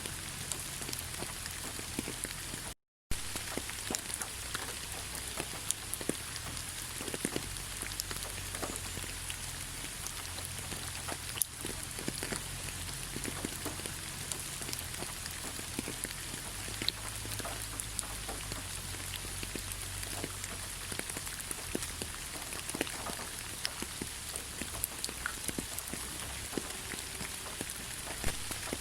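Steady rain falling, with many separate drop hits scattered through it. The sound cuts out for a moment about three seconds in.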